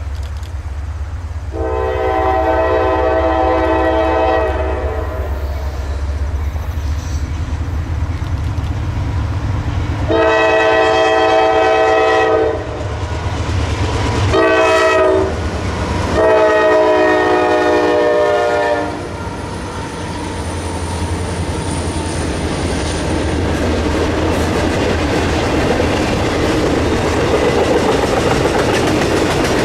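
Nathan K5LA chime horn on a Norfolk Southern GE Dash 9-44CW freight locomotive sounding the grade-crossing signal: two long blasts, a short one and a long one, over the low rumble of the diesel engines. From about twenty seconds in, the freight cars' wheels run clattering over the rails as the train passes.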